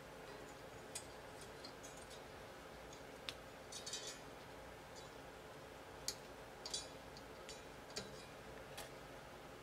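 Faint, irregular metallic ticks and clicks from steel guitar strings and tuning pegs being handled during a string change on a Yamaha FG-251 acoustic guitar, over a low steady hiss.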